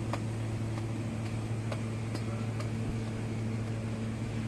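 Steady low machine hum with a few light clicks scattered through it.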